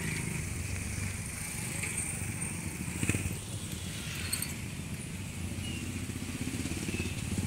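Street traffic of small motorcycle engines and motorcycle tricycles running and passing close by, a steady low rumble, with a short knock about three seconds in.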